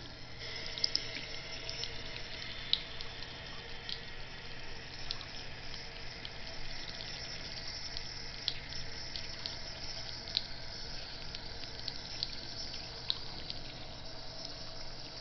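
Bathroom sink faucet running a thin stream into the basin: a steady trickle with scattered small splashes and drips.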